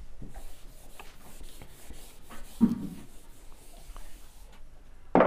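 A whiteboard duster is rubbed back and forth across a whiteboard in quick repeated strokes, erasing marker writing. A sharp knock sounds near the end.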